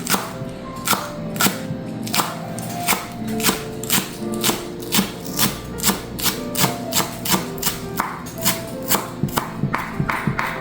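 A kitchen knife chopping green onions on a cutting board in a run of quick, fairly regular knocks, coming faster and less even in the second half, over background music.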